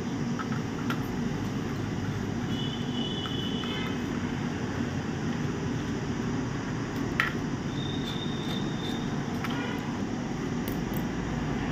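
Steady low background rumble, with a few light clicks and taps of metal tools and a copper heat-pipe heat sink on a laptop motherboard, the sharpest about seven seconds in.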